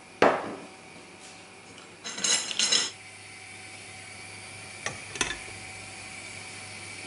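Kitchenware knocking and clattering: a metal pan and a glass bowl being handled. One sharp knock just after the start, a short clatter with some ringing about two seconds in, and two light clinks about five seconds in, as the glass bowl is set onto the pan.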